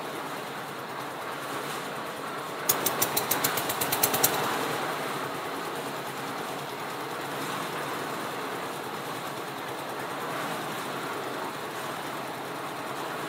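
Small diesel engine of a concrete mixer running steadily, with a run of sharp, rapid knocks, about six a second, starting about three seconds in and lasting about a second and a half.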